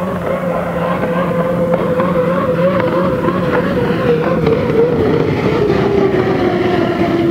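Turbine engine of the U-40 Miss Beacon Plumbing unlimited hydroplane running at speed, with a steady, slightly wavering whine over a noisy rush. The pitch of the whine sinks gradually over the second half.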